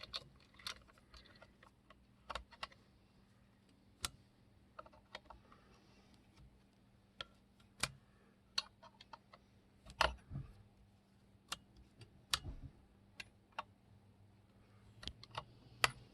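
Scattered small metallic clicks and clinks as a nut is threaded by hand onto a chainsaw's bar stud, a few sharper knocks among them.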